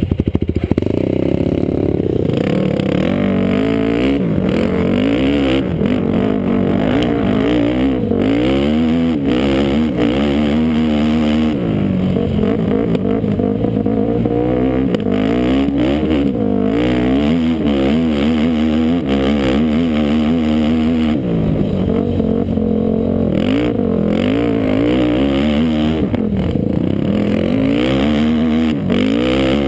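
Yamaha sport ATV engine under hard riding, its pitch climbing and dropping again and again as the throttle is opened and backed off.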